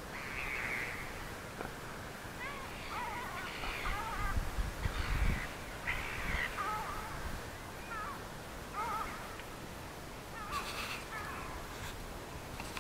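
Crows cawing again and again, short calls scattered through the whole stretch, with a brief low rumble about halfway through.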